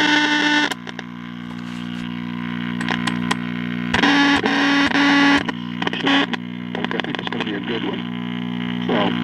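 Tube radio playing through its speaker with a steady loud hum under distorted, crackling sound. A pitched tone and garbled broadcast audio cut in and out. The hum points to grounding problems, and the distortion to a 50L6 output tube that the owner suspects is worn out.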